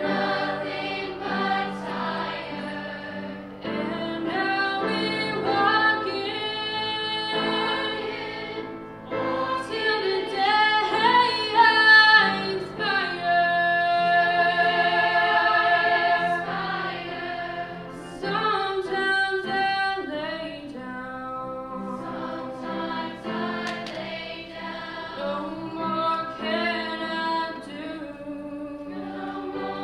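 Middle school chorus singing a song together, with a featured soloist at the microphone. The singing swells louder in the middle.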